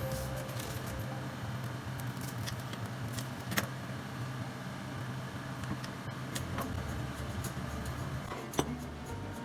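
A few sharp clinks of tableware being handled, the loudest about three and a half seconds in and again near the end, over a steady low hum.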